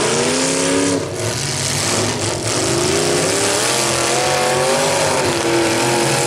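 Demolition derby cars' engines revving hard, pitch climbing in the first second and rising and falling again from about two and a half seconds in, over a loud steady din of engines and spinning tyres.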